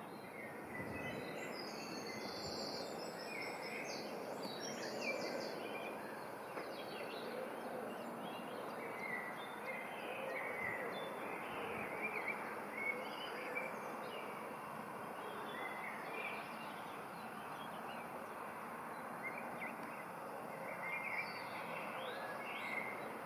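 Birds chirping and trilling in short, scattered phrases over a steady outdoor background hiss.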